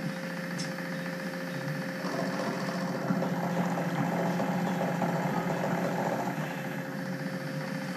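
Milling machine running with its end mill cutting mild steel as the table feeds the work across. The cutting gets louder about two seconds in and eases near the end, over a steady motor hum.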